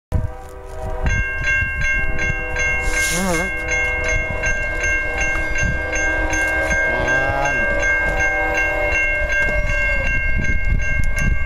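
Freight locomotive horn sounding a long held chord as the train approaches, with a railroad crossing bell ringing rapidly and evenly from about a second in. Train rumble underneath.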